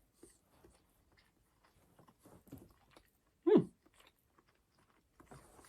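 A person chewing a mouthful of bread-and-butter-pudding sandwich with faint, soft, irregular chewing noises. About three and a half seconds in comes one short, loud, voiced hum that falls in pitch.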